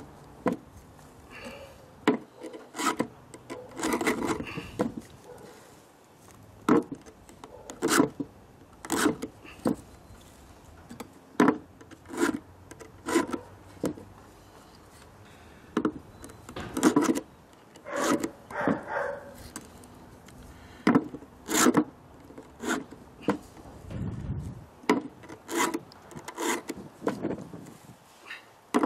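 Round file rasping across the cutters of a chainsaw chain during hand sharpening: short strokes, often two at a time per tooth, with pauses as the file moves on to the next cutter.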